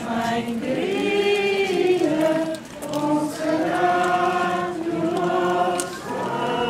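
Procession crowd singing a hymn together in held notes, with short breaks between phrases.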